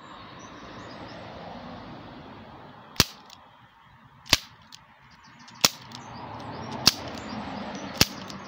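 Umarex Legends S25 CO2 revolver firing five shots, one every second and a quarter or so, each a sharp crack of released CO2. The first shot comes about three seconds in.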